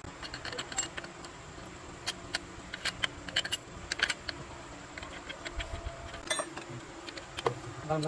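Light metal clinks and taps of tools on engine parts, scattered and irregular, over a steady low hum.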